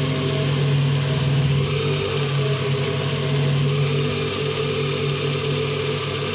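Metal lathe running steadily with a clip-on motorcycle handlebar turning in its chuck: an even motor hum under a constant hiss.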